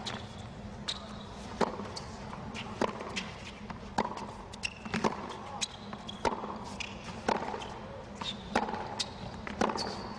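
Tennis rally on a hard court: the ball struck back and forth, sharp racket hits about once a second, with a few short high squeaks between them over a low crowd murmur.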